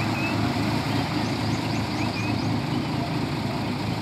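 Steady low rumble, with a bird chirping in quick, short, repeated notes about a second in.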